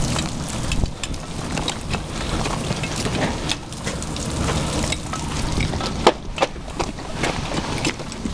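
Charged fire hose line with water spraying out in a steady rush, with scattered clicks and knocks through it.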